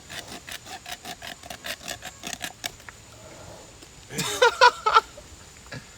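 A saw rasping back and forth through a pig's tusk in quick, even strokes, about five a second, then stopping. About four seconds in, a short loud vocal cry rises over it.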